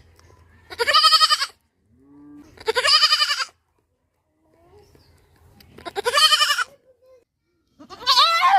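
Goat bleating four times, each call just under a second long with a wavering pitch, about two seconds apart.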